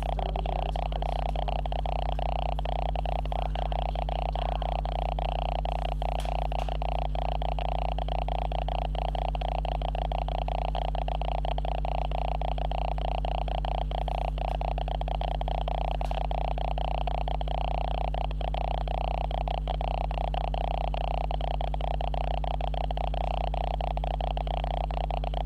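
Steady electrical hum and buzz made by the camera itself, a recording fault: several fixed low tones under a higher hiss, at an unchanging level.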